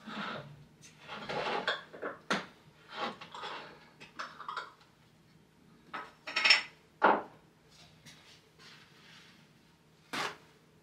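Hard objects being picked up and set down on a workbench: rustling and handling noise, then several sharp metallic clinks and clanks, the loudest and most ringing about six and a half seconds in.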